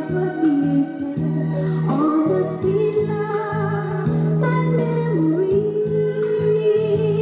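A recorded song playing back on a PYE Companion 1000 stereo cassette player: a singer holds long, bending notes over a steady bass line and band accompaniment.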